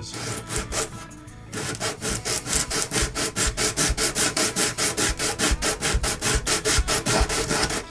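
A replacement guitar bridge being rubbed back and forth on rough sandpaper laid over the guitar's top, in rapid, even scratchy strokes starting about a second and a half in. The bridge's underside is being sanded to match the radius of the top it will sit on.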